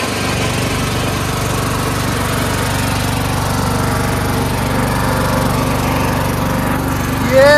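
Craftsman LT1000 lawn tractor engine running steadily under load as the tractor drives along. Just before the end, a louder sound with a rising-and-falling pitch cuts in.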